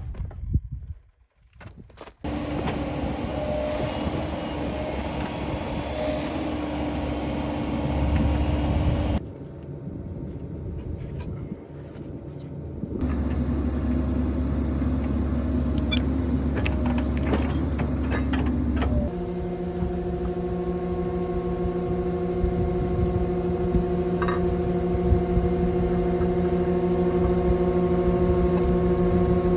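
Skid steer's engine running steadily after a brief near-silent start, its level and pitch pattern switching abruptly a few times before settling into an even run with a steady hum of several tones.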